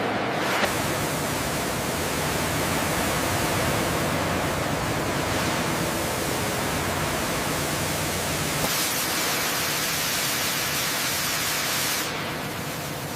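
Steady rushing noise with no clear tone or rhythm. It changes character a little after the start and again about nine seconds in, and drops slightly in level near the end.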